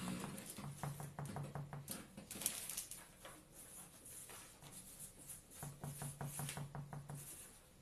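Faint, irregular clicking and scratching from a squeezed plastic squeeze bottle of fabric outliner paint as its nozzle tip works along the surface.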